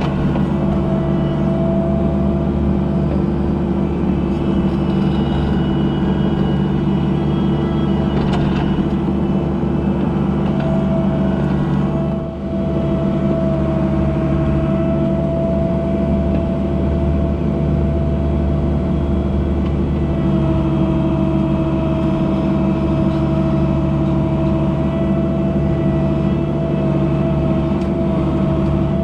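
An engine running at a steady speed, its pitch unchanged throughout, with a brief dip in loudness about twelve seconds in.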